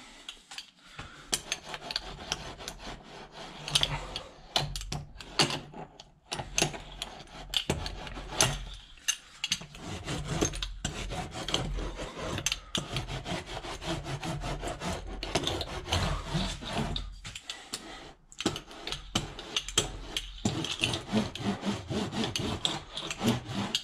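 StP hand roller rolled back and forth over foil-faced sound-deadening sheet wrapped around a plastic sewer pipe, pressing the sheet on: a continuous scraping rasp of short strokes with a few brief pauses.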